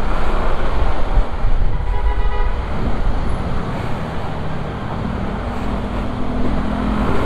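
Yamaha scooter slowing to a stop at the curb, with wind rumbling on the microphone over the engine and street traffic. From about the middle a steady low engine hum comes through as the wind noise drops.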